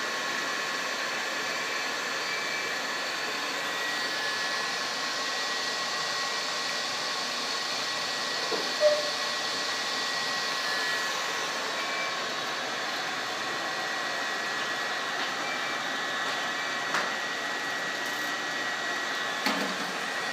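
A UV inkjet ticket-printing machine running: a steady whir of air and motor noise with a few thin, steady whining tones. A few brief clicks sound over it, the loudest about nine seconds in.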